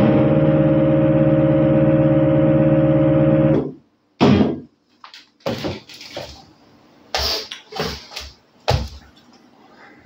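Yamaha DX7 FM synthesizer holding a steady final chord, which cuts off about three and a half seconds in. It is followed by a handful of irregular, quieter knocks and thumps.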